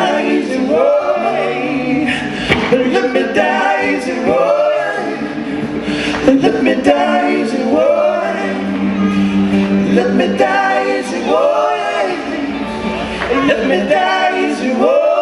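Live blues-rock band playing: a male lead vocal sings long, bending, strained notes over guitar, bass, keyboards and drums with cymbal hits.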